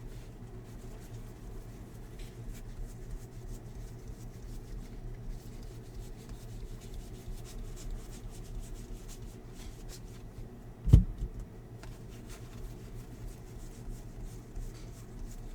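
Trading cards being handled and slid against each other, faint rubbing and light ticks over a steady low hum, with one loud dull thump about eleven seconds in.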